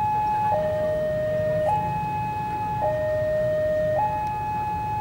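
Railway level-crossing warning siren sounding its two-tone alarm, a high note and a lower note alternating about every second, to warn that a train is approaching, over a steady low rumble.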